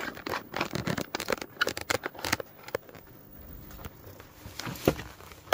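Handling noise: close rustling and clicking as the handheld camera is moved and clothing brushes past the microphone, busiest in the first two to three seconds, with a sharp knock near the end.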